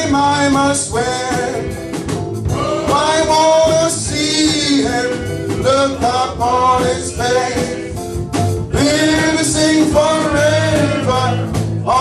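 Men's gospel choir singing a hymn together over instrumental accompaniment, with long held notes.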